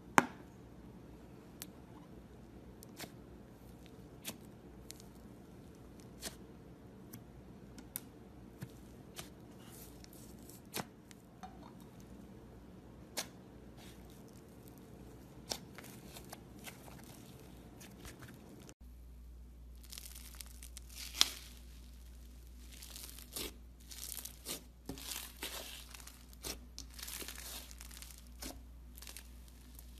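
Slime being worked by hand, giving crisp crackling and tearing sounds. Sparse sharp clicks in the first part give way, after an abrupt cut about two-thirds in, to denser crackling and crunching.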